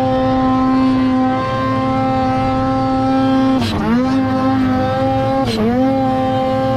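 Ski-Doo 850 Turbo two-stroke snowmobile engine running at high revs in deep powder. Twice, about halfway through and again near the end, the revs drop briefly as the throttle is chopped and the aftermarket blow-off valve vents boost with a short, loud push of air, then the engine picks back up.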